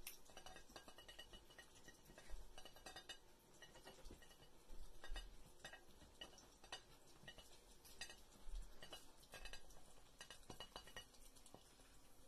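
A duck's bill tapping and scraping a plate as it scoops up peas: faint, irregular clicks and taps throughout.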